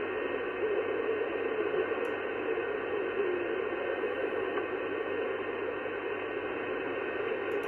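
sBitx shortwave transceiver receiving the 11-metre band on 27.555 MHz upper sideband, giving out a steady hiss of band noise and static through its speaker, cut off above about 3 kHz by the receiver's filter.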